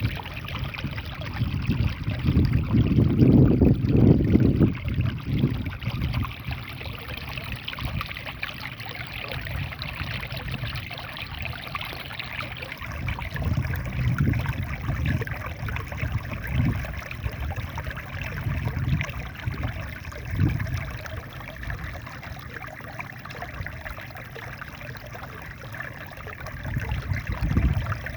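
Small waterfall in a rice field, water splashing and rushing steadily over a drop. Low rumbling surges come and go over it, the loudest about three to four seconds in and another near the end.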